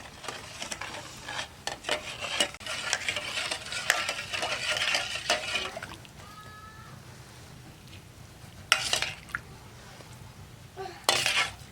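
A spoon stirring and scraping in a cooking pot, with dense clinks of metal on metal, for about six seconds. It then goes quieter, with a brief high squeak and two short loud rushes of noise later on.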